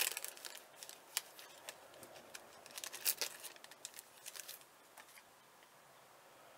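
Paper craft pieces being handled: crisp rustling and light clicks of a card of glitter mini banner pieces and paper against the layout. The sound is loudest at the start and dies away after about four and a half seconds.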